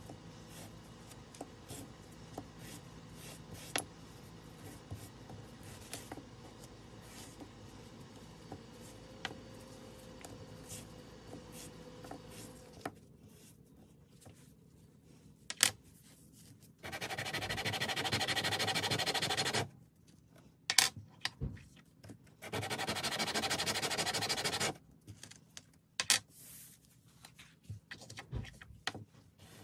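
Disc brake pads being handled and rubbed clean by hand: scattered light clicks and rubbing, then two loud steady hissing stretches of about three seconds each past the middle, followed by a few more clicks.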